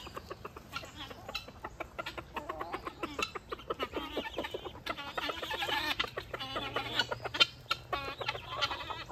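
Backyard flock of chickens clucking while they feed, many short calls overlapping. The chatter grows busier and louder about halfway through.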